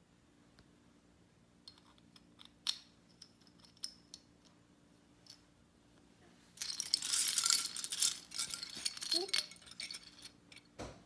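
Small pieces of a toy construction kit clicking against each other a few times, then a dense clatter of the parts lasting about four seconds, starting a little past the middle.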